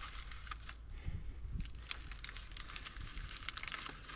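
Dry tinder bundle rustling and crackling as it is handled by hand: irregular small clicks and crinkles, with a couple of soft thumps.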